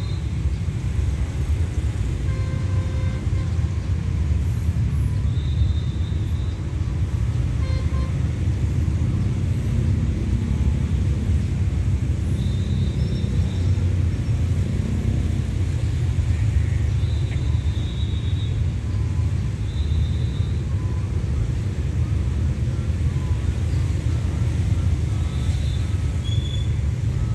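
Steady low rumble of distant road traffic, with a few brief high chirps scattered through it.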